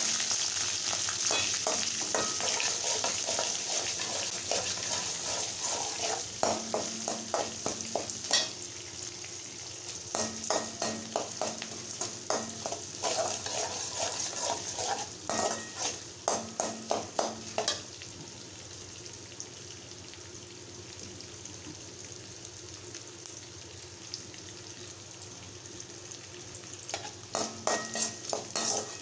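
Chopped onions, green chillies and curry leaves sizzling in oil in a metal kadai, with a metal spoon scraping and clinking against the pan in several spells of stirring. A long stretch later on holds only the steady sizzle before a last round of stirring near the end.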